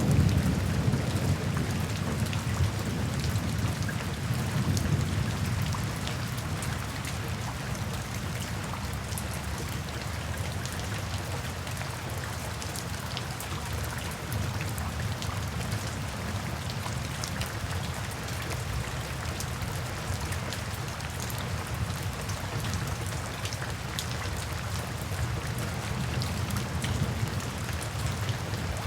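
Steady rain pattering, full of small drop ticks, with a low roll of thunder dying away over the first several seconds.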